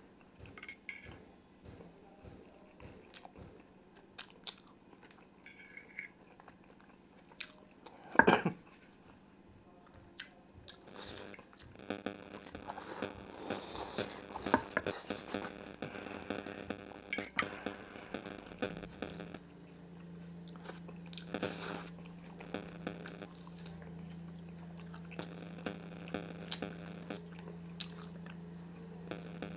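Close-miked chewing, crunching and biting of fried potatoes and salad, with small clicks of cutlery throughout and one loud sudden sound about eight seconds in. About twelve seconds in a steady low hum comes in and holds under the eating.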